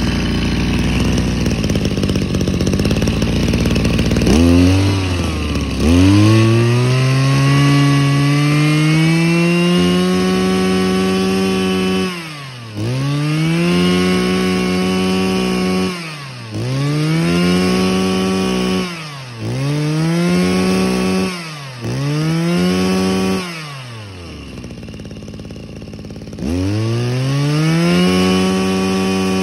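Mitsubishi TL23 brush cutter's small two-stroke engine on a test run: idling roughly, then revved up and let back to idle about six times, each rev rising sharply and holding for a few seconds. After a longer stretch at idle near the end, it is revved up again.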